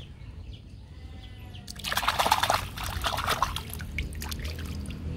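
Water splashing and sloshing as a small plastic toy is dunked and swished by hand in shallow muddy water, starting about two seconds in and loudest just after it starts.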